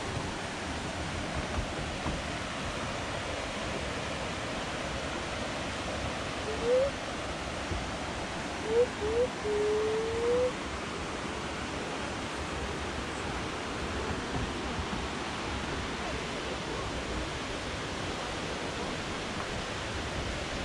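Steady rushing of a whitewater creek in a canyon, an even hiss. About a third of the way in, a few short rising tones stand out over it.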